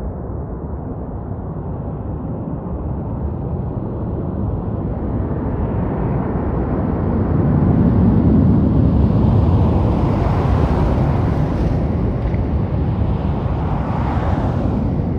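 Fighter jet engines at takeoff power, a loud jet roar that builds over the first half and grows brighter and hissier from about ten seconds in.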